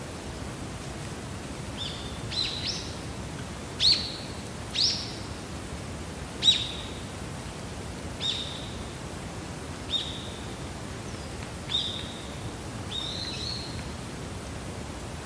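A bird giving about nine short, sharp calls, each a quick downward stroke into a brief held note, spaced a second or two apart, over a steady background hiss.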